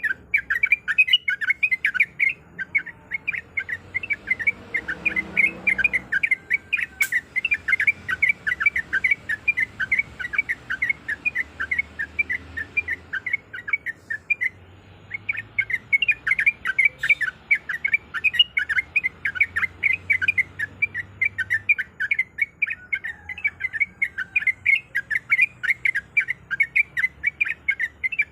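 Yellow-vented bulbul singing a rapid, continuous run of short chirping notes, about six a second, with a brief pause about halfway through.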